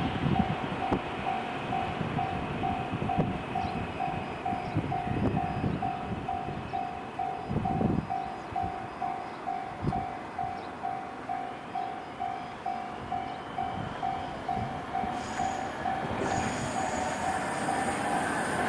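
Railway level-crossing warning bell ringing at about two strokes a second while a train passes, its wheels knocking over the rail joints. In the last few seconds high-pitched wheel squeal joins in.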